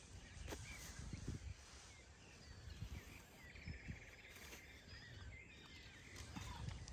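Birds chirping faintly, with scattered short calls and a brief buzzing trill about halfway through, over a low rumble.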